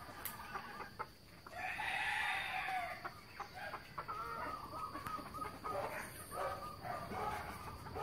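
A rooster crows once, a long arched call about a second and a half in, followed by chickens clucking in short repeated calls.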